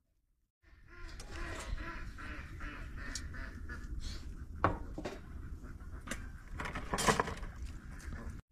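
Hands working through marinated turkey pieces and sliced onions in a large enamel basin: wet squelching and rustling of the meat, with a couple of sharper knocks against the basin or pot lid, one about halfway through and a louder one near the end. It starts about half a second in.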